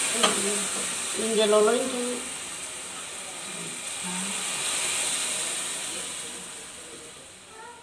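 Milk poured into a hot kadai of fried vermicelli, hissing and sizzling as it hits the pan; the hiss dies away near the end as the pouring stops.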